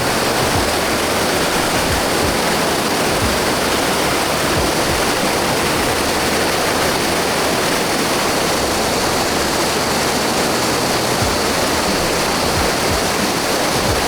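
Waterfall in a mountain stream, water pouring and splashing in a loud, steady rush.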